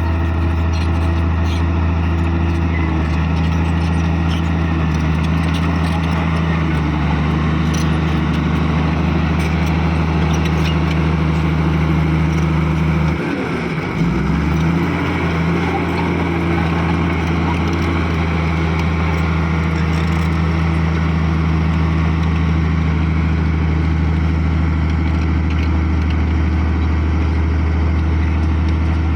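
Bulldozer diesel engine running steadily at working speed; about halfway through the engine speed drops sharply for a moment and comes straight back up.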